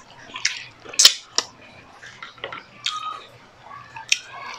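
Close-miked eating sounds: a string of sharp, wet clicks and smacks from chewing and from fingers picking apart grilled milkfish, the loudest about a second in.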